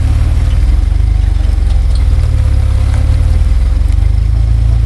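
Off-road vehicle's engine running steadily at low revs, a loud low rumble.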